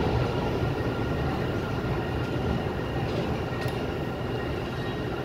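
Steady low rumble of an underground metro station, with a faint high whine, slowly easing.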